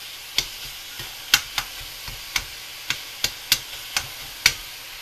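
Crumbled sausage frying in a skillet with a steady sizzle while a utensil stirs it, knocking and scraping against the pan about nine times.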